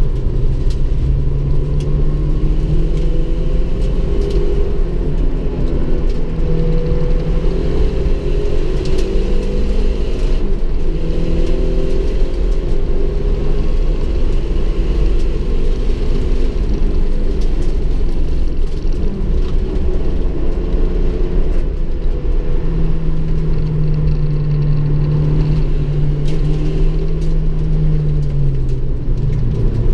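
Turbocharged engine of a 1992 Mazda 323 being driven hard on a race track, its note rising and falling over and over as it accelerates and lifts, heard from inside the cabin over a steady low road rumble.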